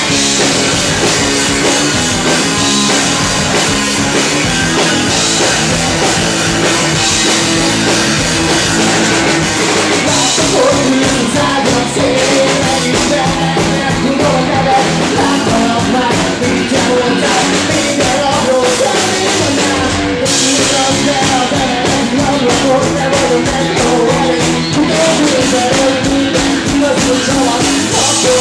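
Rock band playing live: electric guitar and drum kit, with a wavering melody line, likely a singer's voice, coming in from about ten seconds in.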